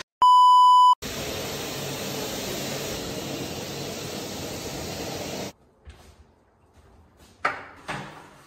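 A TV test-card tone: one steady high beep lasting under a second, then television static hiss for about four and a half seconds that cuts off suddenly. After it, faint room sound with a couple of light knocks.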